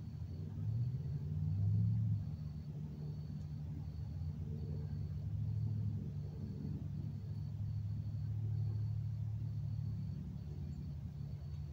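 Low rumble of distant road traffic, swelling and fading as vehicles pass, with a faint high chirp repeating about two or three times a second.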